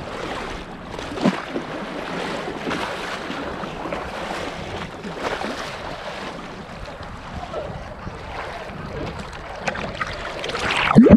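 Sea water sloshing and splashing around a person wading down steps into the sea, with wind on the microphone. The splashing grows louder near the end as the camera reaches the water surface.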